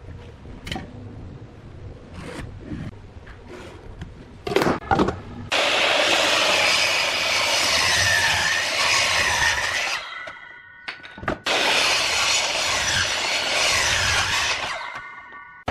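Scattered knocks and taps on wood, then a power tool cutting into wood in two passes of about four seconds each. Each pass starts and stops abruptly, and a brief steady whine is heard between them.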